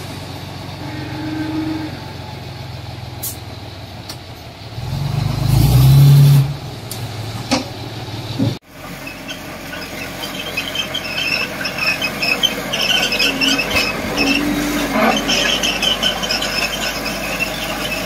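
Heavy construction machinery working: diesel engines running, with a loud revving surge about five to six seconds in. After an abrupt break about halfway through, a continuous clatter with many short high squeals follows, typical of a bulldozer's steel tracks.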